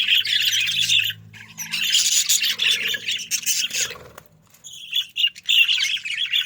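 A flock of budgerigars chattering and chirping with many overlapping squawks, broken by two short lulls, one about a second in and one about four seconds in.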